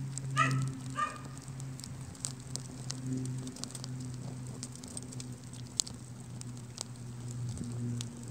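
An open fire burning a plastic game controller with paper and cardboard, crackling with scattered sharp pops over a steady low hum. Two short high chirps come about half a second and a second in.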